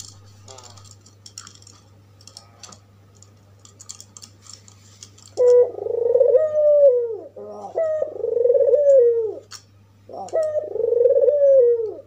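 Albino Barbary dove (puter) cooing: three long coos, each about one and a half seconds, starting about five seconds in, with short notes between the first two. Faint clicks come before them.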